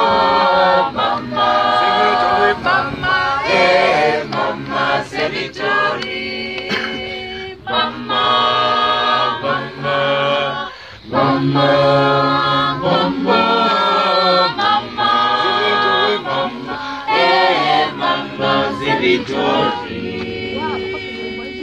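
Group of children singing a worship song together in unaccompanied voices, with no instruments.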